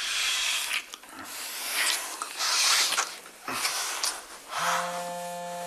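Breathy kissing and rustling of bedsheets, then about four and a half seconds in a mobile phone starts ringing with a steady buzzing tone.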